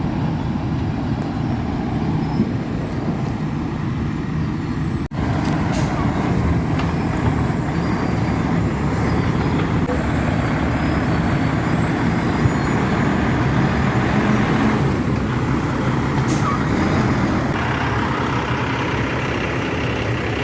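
Heavy dump truck running on the road: a steady engine and road noise, with a brief break about five seconds in.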